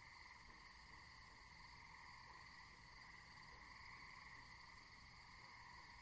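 Faint, steady chorus of night insects, like crickets, as a soft unbroken drone.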